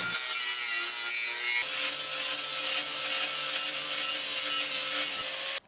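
Angle grinder with an abrasive disc grinding plasma-cut 1.5 mm steel parts to clean up their edges: a steady hiss over a steady motor whine. It gets louder about a second and a half in and stops abruptly near the end.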